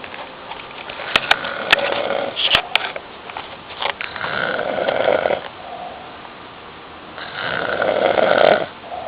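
A man snoring loudly in his sleep: three snores about three seconds apart, with a few sharp clicks during the first.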